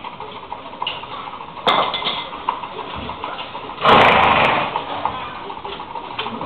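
A heavy draft horse's hind hoof being trimmed: a sharp snap a little under two seconds in, and a loud, noisy burst lasting under a second about four seconds in.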